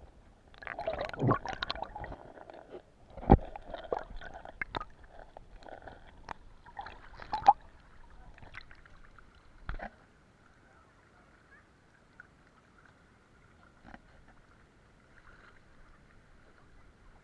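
Muffled knocks, scuffs and water movement heard from inside an action camera's waterproof case as it is moved underwater, with several sharp knocks in the first ten seconds and then only faint sound.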